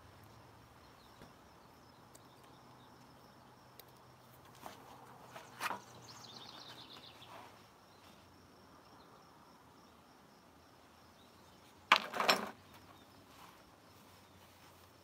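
Kitchenware being handled with oven mitts: a few light clicks about five seconds in, and a louder short clatter of knocks about twelve seconds in, over a faint steady background.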